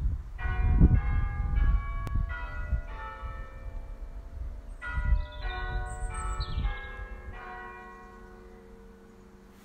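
Church bells ringing one after another, about a stroke every half second, each note ringing on over a low rumble, and fading out toward the end.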